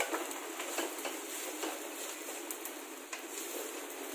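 Wooden spatula stirring and scraping rice in a metal frying pan over a gas flame, with light scattered clicks over a steady frying hiss.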